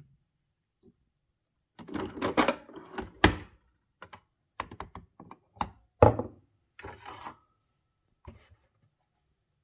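A drinking glass being handled at a Nespresso machine, knocking and clinking as it is lifted off the metal drip-tray grille and set down on the counter. The knocks come in two clusters, the loudest about two and six seconds in, with a last light knock near the end.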